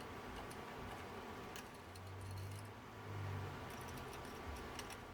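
Quiet workbench room tone: a faint low hum that swells briefly in the middle, with a few light clicks from handling small parts.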